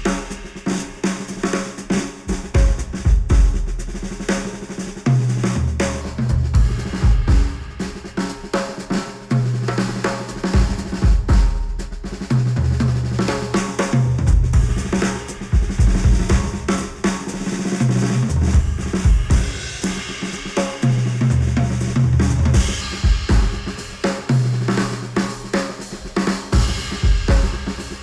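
Instrumental music with a steady drum kit beat (snare, kick and cymbals) over a bass line of held low notes, played back through headphones and picked up by microphones placed on them.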